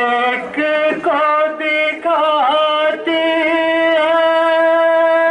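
A man's voice chanting loudly in long held notes, with short breaks between phrases for the first three seconds and one long drawn-out note after that.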